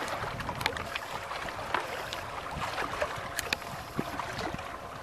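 Water lapping against shore rocks, with wind on the microphone and a few short sharp clicks.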